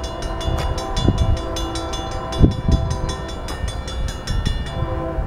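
Grade-crossing warning bell ringing in rapid, even strikes, stopping near the end. Beneath it the multi-note horn of the approaching BNSF-led train sounds in long blasts with short breaks. There are a few low thumps about a second in and midway.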